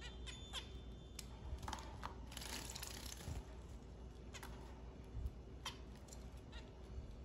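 Zebra finches giving short, nasal chirping calls every second or so, singly and in quick pairs.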